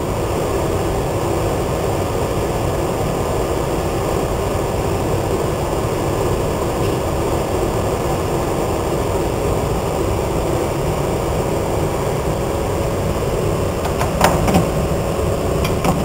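Industrial microwave conveyor-belt dryer running: a steady mechanical hum and fan noise with faint steady tones, broken by a few short clicks near the end.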